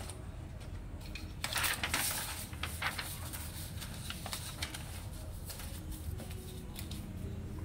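Paper rustling with light clicks as sheets are handled on a laser printer, busiest about one and a half to three seconds in and sparser after, over a low steady hum.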